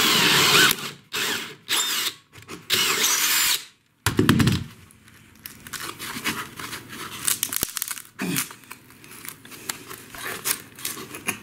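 Cordless DeWalt drill spinning a hole saw through a plywood subfloor in several short bursts, stopping a little before four seconds in. A loud thump follows, then quieter scraping and rustling of a hand sweeping sawdust around the cut hole.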